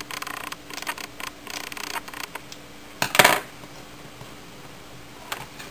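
Household scissors snipping several times into soft bread dough, then set down on the table with a short clatter about three seconds in, the loudest sound.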